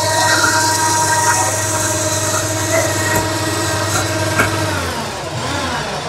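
Electric hoist motor running steadily with a hum as it lifts a push mower on its chains. It slows with a falling pitch near the end.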